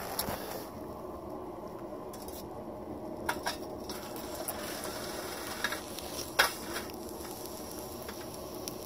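Molten aluminum poured from a crucible held in tongs into a metal cornbread bar mold: a low steady hiss with a few sharp ticks and clinks, the loudest about six seconds in.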